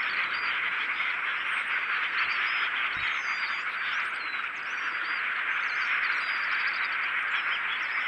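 A huge flock of small birds calling all at once: a dense, steady chattering din, with many higher chirps and whistles picked out above it.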